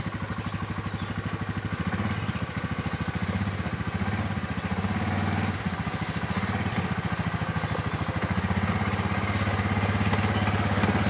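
Quad bike (ATV) engine running at low speed with a steady, even pulse as the bike crawls down a rocky track. It grows gradually louder as it approaches.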